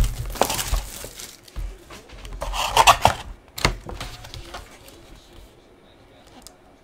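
A trading-card hobby box being unwrapped and opened by hand: plastic wrap crinkling and cardboard rubbing in two short bursts, with a few sharp knocks, then quieter handling.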